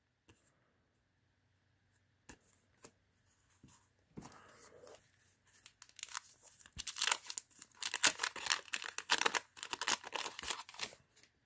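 Paper wrapper of a 1990 Fleer basketball card wax pack being torn open and crinkled by hand. A few soft rustles at first, then a dense run of crackling for the last five seconds or so.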